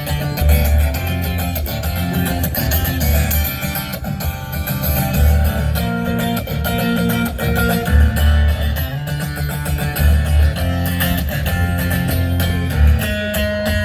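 Live rock music in an instrumental break: guitars playing over a pulsing low bass line, with no vocals.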